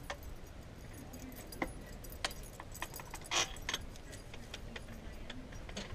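Scattered metallic clicks and clinks of a hand wrench working an alternator mounting bolt, with one louder clink about three and a half seconds in.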